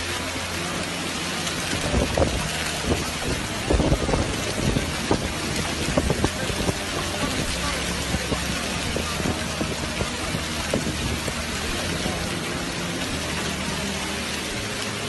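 Heavy rain falling steadily, with a run of sharp taps of drops striking close by from about two to seven seconds in.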